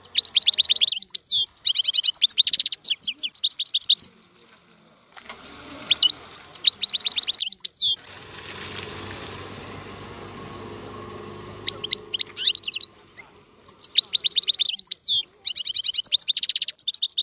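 European goldfinch singing: bursts of rapid, high, tinkling twitters and trills. A softer stretch of plain noise fills a pause of about four seconds in the middle.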